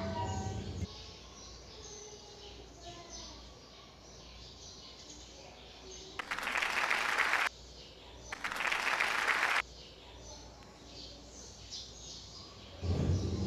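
Two bursts of clapping, each about a second long, one about six seconds in and one about two seconds later, over faint bird chirps. A loud low steady sound stops about a second in and comes back near the end.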